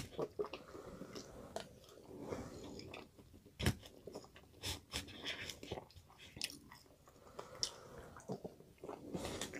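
A person chewing food close to the microphone, with scattered small clicks and taps of a fork working in a cup of Cajun rice.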